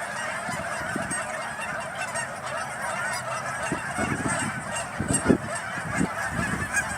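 A large flock of Canada geese honking, many calls overlapping without a break. A few low thuds come in the second half, the loudest about five seconds in.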